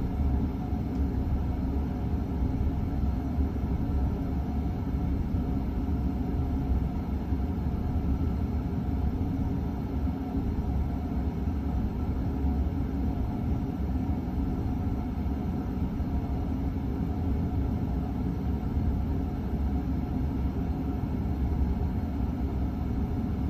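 Emerson friction-drive ceiling fan running at its slowest speed, a steady low rumble with a home furnace running under it. The fan shakes the ceiling because its rubber drive band is held on with electrical tape.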